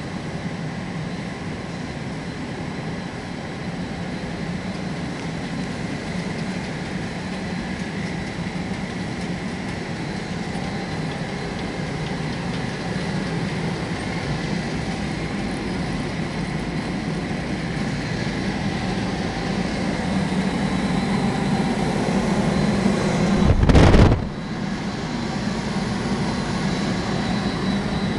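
Steady hum and whirr of running industrial machinery with a faint high whine, growing slightly louder. Near the end comes one brief, loud low thump.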